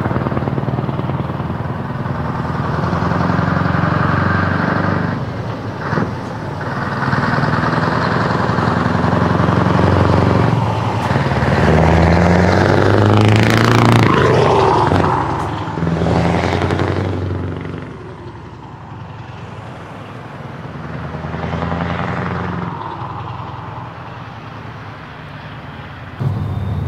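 Heavy truck engine running loud through open exhaust pipes, its pitch stepping up and down as it revs. It drops back to a lower level about two-thirds of the way through.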